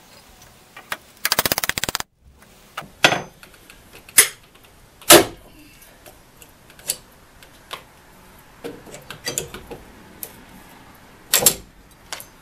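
Hand tools knocking and prying against metal and wood as a nail is worked out of a wooden window frame: a string of separate sharp knocks and clanks, the loudest about five seconds in. Near the start there is a quick rattling run of clicks lasting under a second.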